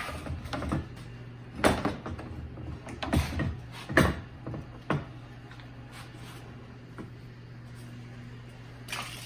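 Several hard clunks and knocks as a radiator and fan assembly is handled and set into a plastic UTV hood, four in the first five seconds and one more near the end, over a steady low hum.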